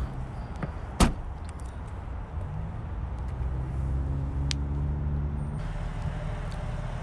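A sharp clunk from the car's trunk latch about a second in, with a few lighter clicks, over a steady low hum.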